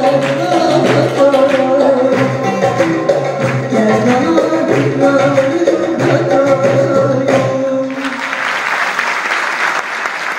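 Choir and instrumental ensemble performing a Turkish folk song with a steady percussion beat. The music ends about eight seconds in and the audience applauds.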